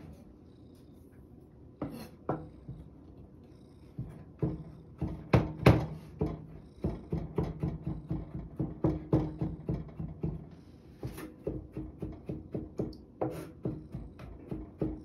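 Kitchen knife chopping carrots on a cutting board: a run of quick, irregular knocks, about two to three a second, starting about four seconds in, with a low steady hum beneath part of it.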